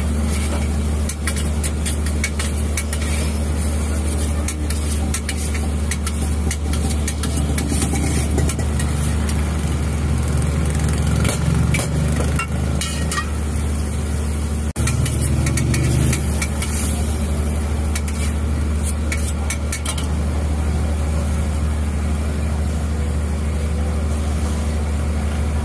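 Flatbread frying on a flat steel griddle: sizzling and clicks of a metal spatula against the griddle over a steady low rumble.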